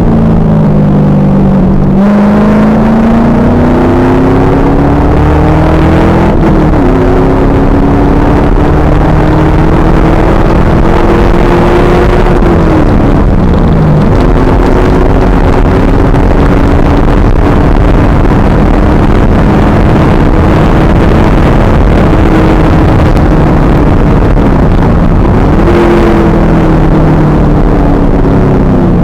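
The 2000 Pontiac Trans Am Firehawk's V8 under way at track speed, recorded loud and rough by an onboard camera. The engine note climbs slowly for long stretches, and it dips sharply and recovers about four times, about six seconds in, around thirteen to fourteen seconds, near twenty-five seconds and at the very end.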